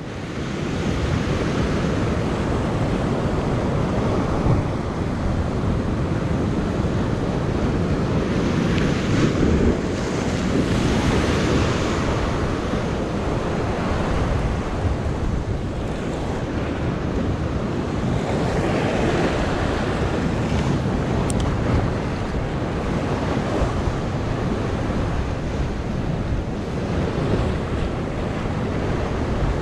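Ocean surf breaking and churning against the rocks just below, swelling and easing as each wave washes in, with wind buffeting the microphone.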